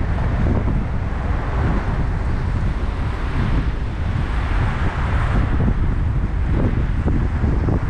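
Loud, steady wind buffeting a camera microphone: a constant low rumble with a hiss above it that swells slightly about halfway through.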